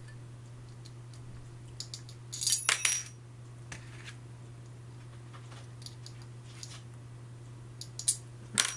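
Light metallic clinks and taps as a small hand tool works on an aluminium motor bracket and shaft coupling while its screws are tightened: a cluster of sharp clinks about two and a half seconds in, scattered faint ticks, and another cluster near the end. A steady low hum runs underneath.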